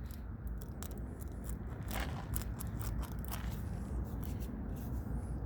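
Tire plug reamer being twisted and worked into a puncture in the tire tread: scattered scraping and clicking of the steel tool against the rubber, over a low steady rumble.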